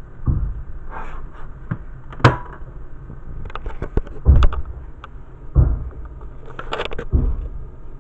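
A series of irregular knocks and thumps from objects being handled, with a sharp click about two seconds in and heavier thumps about four, five and a half and seven seconds in.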